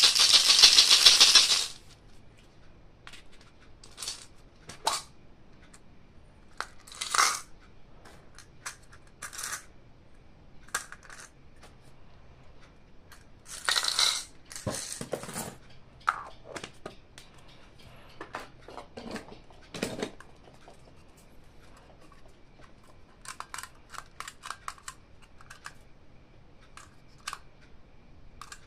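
Toy packaging and small plastic toy parts being handled: a loud rustling burst of packaging for about two seconds at the start, then scattered light clicks and taps, with another short burst of rustling about halfway through.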